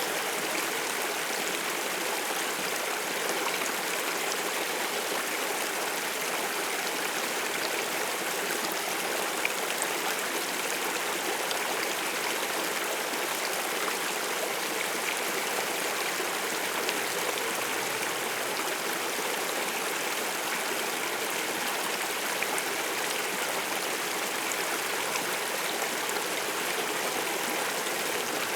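A water stream flowing steadily: an even rushing noise, mostly mid and high with little bass, and occasional faint ticks.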